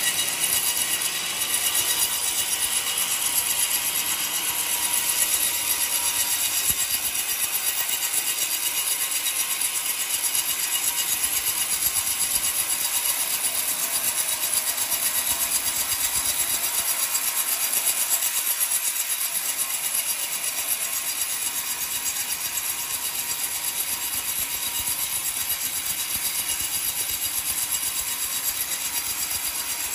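Homemade band sawmill's blade cutting lengthwise through an old coconut log: a steady sawing hiss, strongest in the high range, over a faint constant whine.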